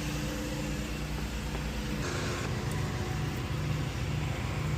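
Nissan Altima's engine idling with a steady low hum; the hum shifts about two seconds in, with a brief hiss.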